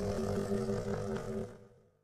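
Monster roar sound effect mixed from animal roars, its low pitched growl trailing off and fading out about a second and a half in.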